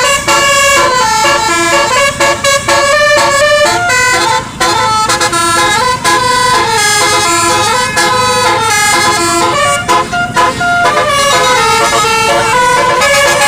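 Basuri telolet bus horn playing a fast tune, a loud run of horn notes stepping quickly from one pitch to the next.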